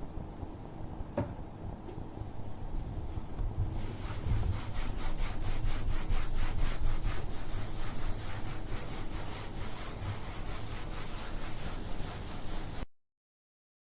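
Wiping a kitchen surface: rubbing strokes that start soft and low, then from about four seconds in become a fast, even back-and-forth scrubbing. The sound cuts off suddenly near the end.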